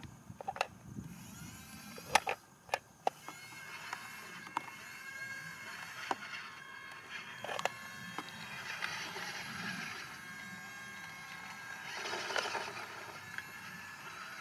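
Small electric motor and gears of a remote-control model truck whining steadily, swelling louder about twelve seconds in. Several sharp clicks and knocks come in the first three seconds.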